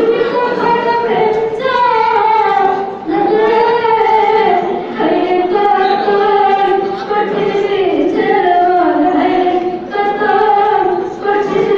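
A girl singing solo into a handheld microphone: one continuous melodic line of long held notes that slide between pitches, with brief dips between phrases.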